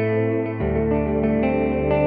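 Nord Wave 2 synthesizer playing its 'Electric Vibe' factory preset: sustained chords with a chorus-like shimmer, with the notes changing about half a second in and again near the end.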